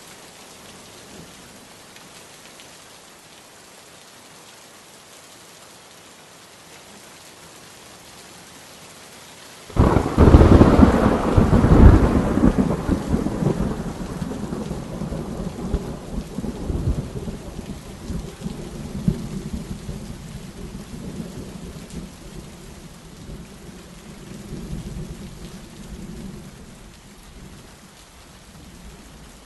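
Steady rain, then a sudden loud clap of thunder about ten seconds in that rumbles on and slowly fades over some fifteen seconds.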